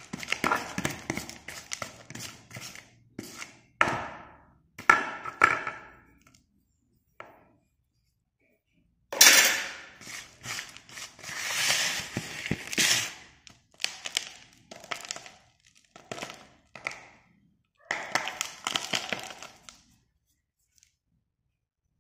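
Broken slate pencil pieces clattering and crunching against each other in a tub as they are moved about, in about a dozen separate bursts. There is a pause in the middle, and the loudest burst comes about nine seconds in.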